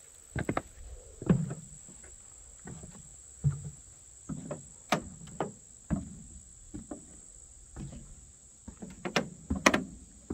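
Footsteps on wooden deck boards: a string of dull thuds at an uneven walking pace. A steady high insect trill carries on behind them.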